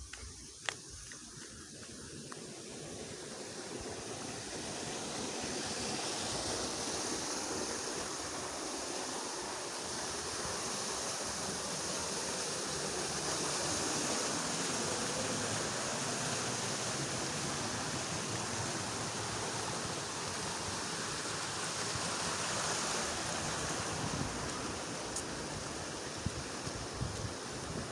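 Rushing water of a fast-flowing stream, a steady roar that swells over the first few seconds and then holds.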